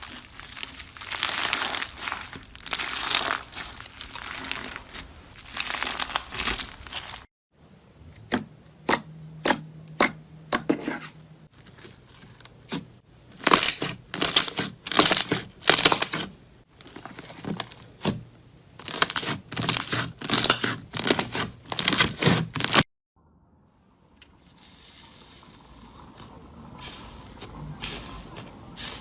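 Brittle, crunchy material being crushed and pressed: dense crackling for the first seven seconds, then a run of separate sharp, crisp crunches, one or two a second, the loudest in the middle, and softer crackling in the last few seconds.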